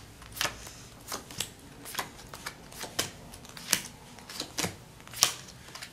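Playing cards being dealt off a packet one at a time: an irregular run of sharp card snaps and flicks, about two or three a second, the loudest a little after five seconds in.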